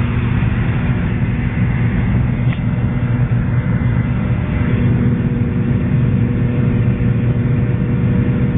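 Steady drone of an airliner in flight heard inside the cabin: engine and airflow noise with a constant low hum.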